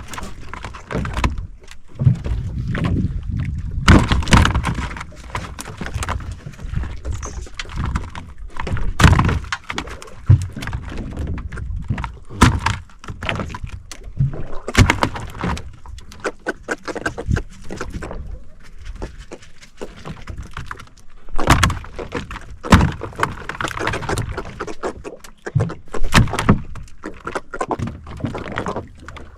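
Irregular thumps and knocks aboard a small fishing boat, about one every second or two, over a low rumble.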